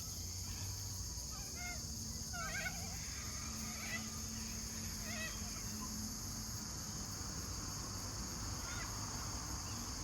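Birds chirping in short, separate calls every second or so over a steady high-pitched drone of insects, with a low rumble underneath.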